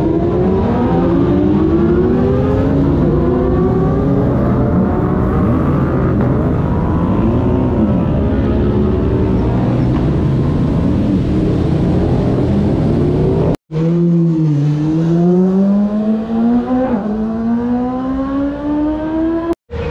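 Racing superbike engines revving hard as the bikes accelerate away, the pitch climbing and dropping back again and again with each gear change, several bikes overlapping.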